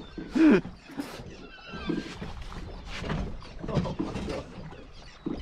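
Wind and water noise on an open boat, with a brief voiced grunt about half a second in and scattered small knocks.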